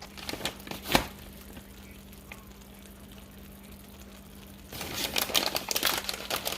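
A plastic bag of shredded cheddar cheese crinkling as it is handled. There are a few light clicks and a knock about a second in, then a louder stretch of dense crinkling near the end.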